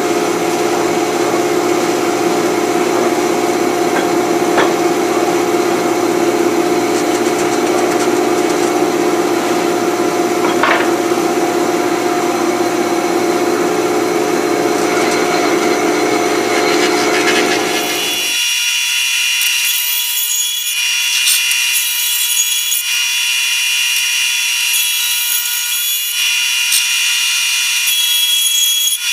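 Thickness planer running while maple-and-cherry boards are fed through it, a loud, steady machine noise. About two-thirds of the way through, the deep part of the sound stops abruptly, leaving a thinner, high-pitched whine.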